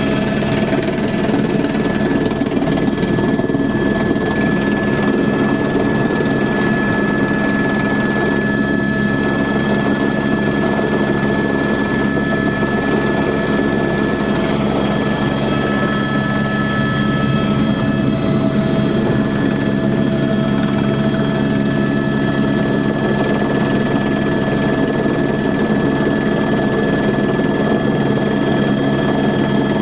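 Helicopter in flight: a loud, steady rumble of engine and rotor noise with several constant whining tones running through it.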